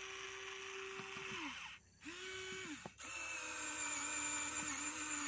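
Small electric gear motors of a HUINA remote-control toy excavator whining as its arm and bucket move. The whine winds down about a second and a half in, runs again briefly after a short pause, and starts up once more about three seconds in, with a click or two around the restart.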